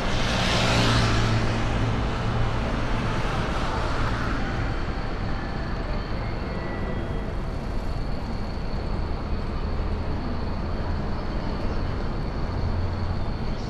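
Road traffic on a city street: a vehicle passes close by in the first couple of seconds, then a steady hum of traffic continues.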